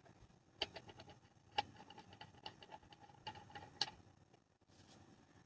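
Faint, irregular clicks and light taps, about a dozen over three seconds, the sharpest near the start and near the end.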